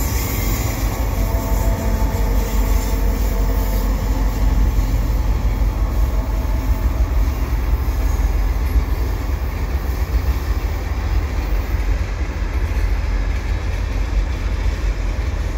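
Canadian Pacific freight train rolling past: a steady, loud low rumble of diesel locomotives and freight cars on the rails, with a faint whine in the first half.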